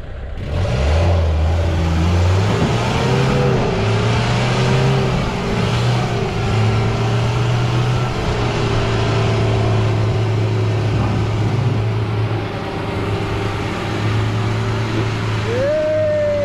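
Toyota pickup truck's engine pulling hard under load through a deep mud bog. Its engine speed steps up and down throughout, with a quick rev that rises and falls near the end.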